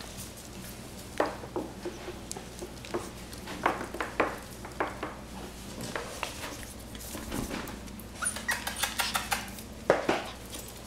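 Cavalier King Charles Spaniel puppies scampering on a tiled floor and around a plastic ball-pit tub: scattered light clicks and knocks of claws and paws on tile and plastic, quickening a little after eight seconds, with a brief high squeak about then and a sharper knock near the end.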